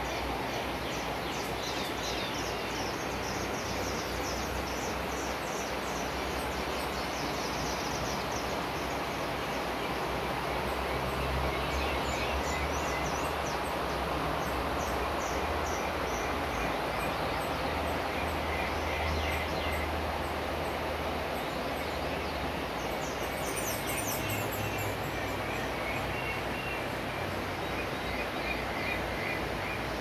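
Birds chirping and calling over a steady rush of flowing water, with a quick run of high chirps about three quarters of the way through.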